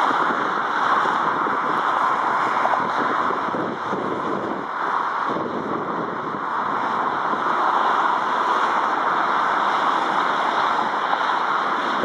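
Gusty wind on the microphone, rising and falling, mixed with the steady engine noise of an Airbus A300 freighter approaching to land.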